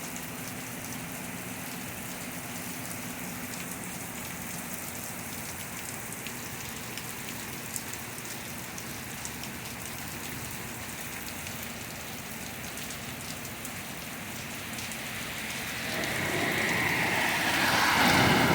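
Steady heavy rain falling on hard ground, with scattered drops ticking close by. A louder rush of splashing noise builds over the last couple of seconds.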